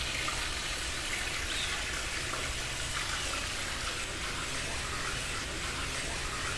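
Steady rushing hiss with a low hum underneath, unchanging throughout.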